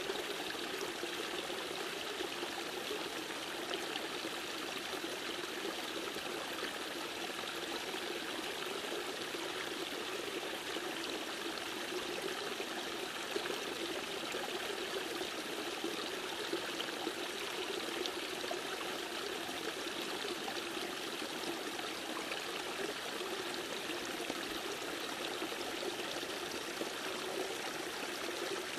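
Steady rushing and trickling of a mountain stream, an even wash of water noise that does not change.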